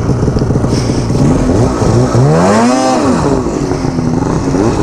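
Snowmobile engine with an aftermarket exhaust can running, revved up once about a second and a half in and falling back to a lower speed shortly after three seconds, the sled's track churning in deep snow.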